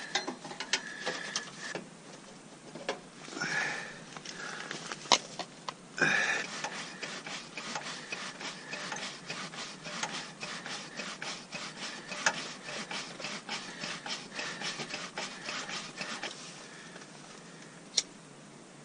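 Pump plunger on a Coleman liquid-fuel camp stove's tank worked in quick, even strokes for about ten seconds, pressurising the fuel before lighting. The strokes follow a few seconds of clatter as the stove is handled, and a single sharp click comes near the end.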